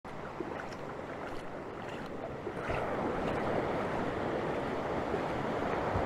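Ocean surf breaking and washing up the beach, a steady rush that grows louder a little before halfway through.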